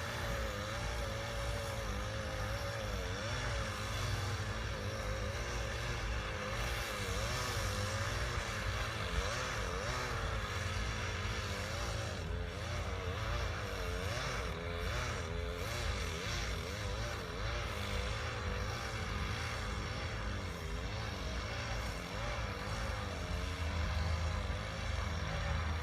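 Engines running steadily: a higher engine note wavering up and down in pitch over a steady low drone.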